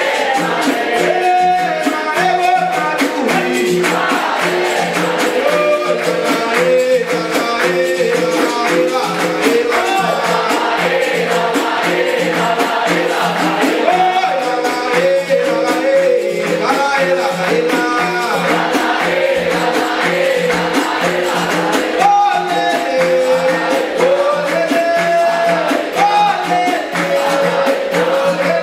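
Capoeira roda music: berimbaus, atabaque drum and pandeiro keeping a steady rhythm under a group of voices singing together, with hand clapping.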